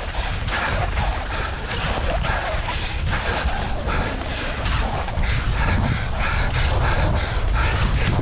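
Wind rumbling over the microphone while skate skis hiss and scrape on groomed snow in a repeated rhythm of strokes.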